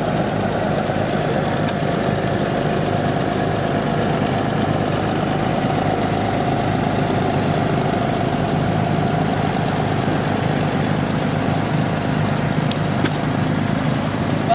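Antique row-crop tractor on steel wheels, its engine running steadily at low speed as it drives slowly across grass.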